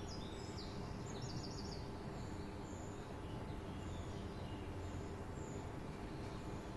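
Small birds chirping, a quick cluster of short high notes in the first two seconds and fainter scattered chirps after, over a steady low hum of town background noise.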